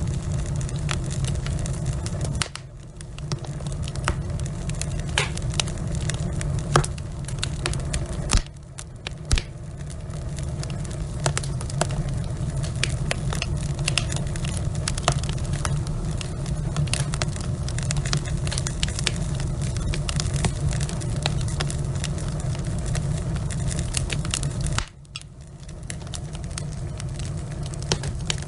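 Wood fire in a fireplace: logs crackling and popping in quick irregular clicks over a steady low roar of the flames. Three times the sound drops away suddenly and then swells back over a second or two.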